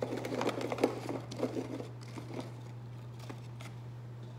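A hand rummaging in Pringles cans, the potato chips rustling and clicking against each other and the cardboard tubes, busy for about two seconds, then a few scattered clicks. A steady low hum runs underneath.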